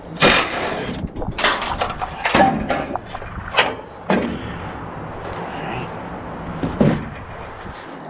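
Scattered sharp knocks and clanks of hands and tools working on a rooftop condenser unit, over a steady rush of wind on the microphone. The loudest knock comes about a quarter second in.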